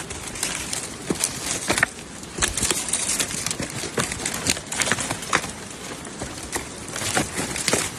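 Irregular crackling and snapping, like dry leaves and twigs in bamboo-forest litter, with scattered light knocks a few times a second.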